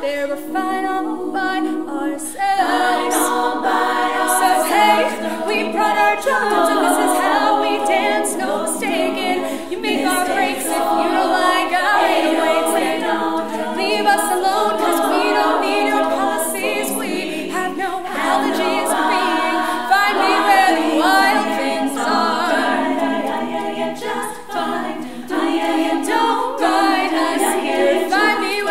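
All-female a cappella group singing a pop arrangement: a lead soloist sings over several backing voices, with no instruments and no low bass part.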